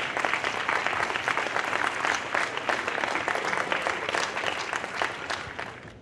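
Audience applauding, many hands clapping at once, fading out near the end.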